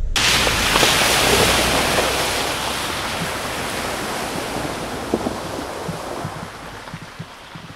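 Suzuki SX4 driving through a flooded, muddy track, its tyres throwing up a rush of water spray that starts suddenly and fades steadily as the car pulls away.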